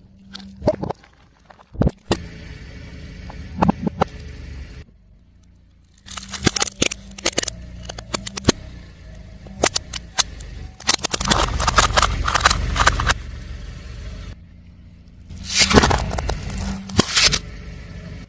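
Things cracking and crunching under a car tyre: runs of sharp cracks and crackles over the low, steady hum of the car's engine. The sound starts and stops abruptly several times, as separate crushes follow one another.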